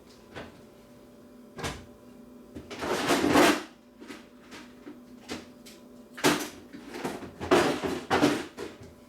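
Rummaging: a series of knocks and clatters of objects being moved around, with a longer scraping rustle about three seconds in and more clattering near the end, as someone hunts for a tape measure.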